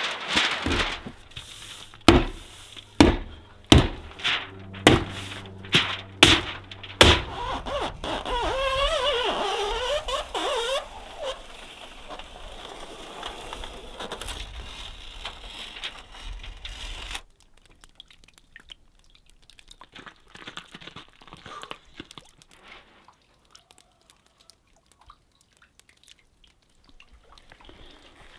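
A run of sharp knocks, about one a second, from fastening Tyvek housewrap onto a wooden cabin wall. Later the sound drops to faint rustling and scuffs.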